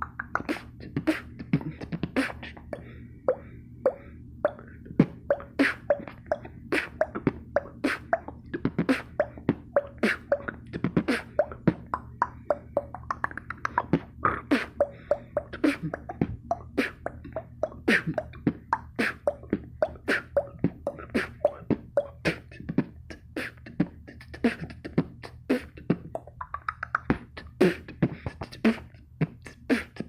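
Beatboxed water-drop sounds: quick pitched mouth pops and bloops, about three a second in an uneven rhythm, imitating drops falling into water.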